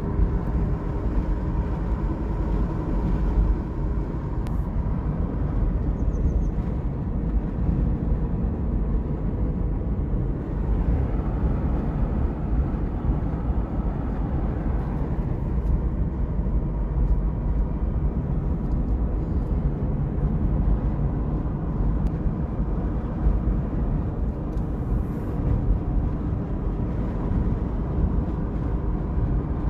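Steady low rumble of a vehicle in motion, running evenly throughout with a faint steady hum.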